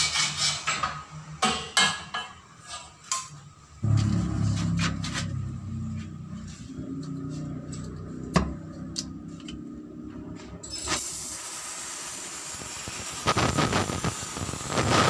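Sharp metal clanks and knocks from exhaust pipe work. About two-thirds of the way in, a steady hiss starts, typical of gas flowing from an oxy-acetylene welding torch.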